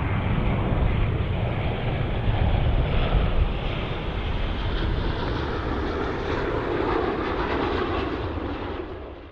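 Jet airliner engine noise heard from a distance: a steady, noisy rush that fades out near the end.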